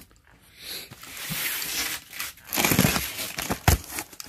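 Cardboard cartons being handled and shifted, with scraping and rustling of cardboard and packing tape. There is a single sharp knock about three-quarters of the way through, as a carton is set down.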